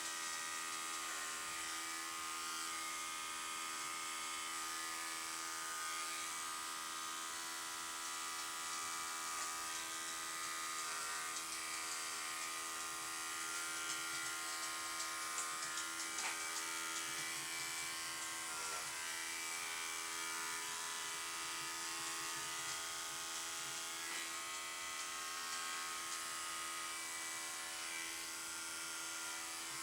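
Electric grooming clippers running steadily.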